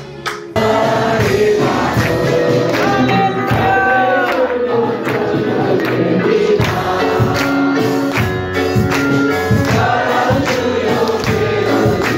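A choir singing a gospel song with instruments and a steady beat; it comes in abruptly and loud about half a second in.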